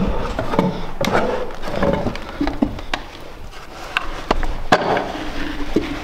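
Boots stepping down steep old stairs: irregular knocks and thuds of footfalls on the steps.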